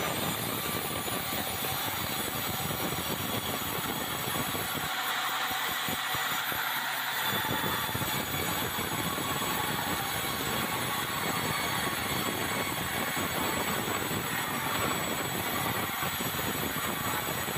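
Sawmill band saw cutting lengthwise through a red meranti beam: a steady, loud sawing noise with a high whine from the blade.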